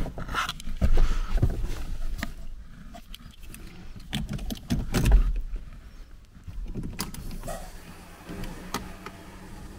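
Irregular knocks, clicks and rustles as someone settles into a car's driver seat and fits the key into the ignition, louder in the first few seconds and quieter after; the engine is not yet running.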